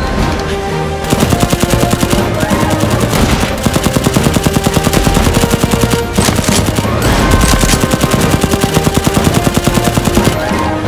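Rapid automatic blaster fire, about nine shots a second, in two long bursts with a short break about six seconds in, over background music.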